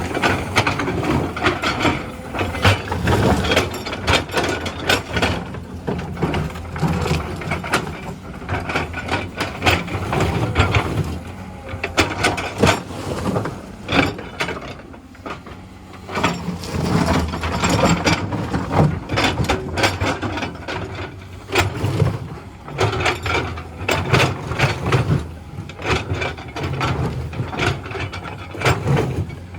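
Hydraulic excavator at work: the diesel engine runs under load while the bucket and loose rock clank and rattle in irregular knocks. The noise eases briefly about halfway through, then picks up again.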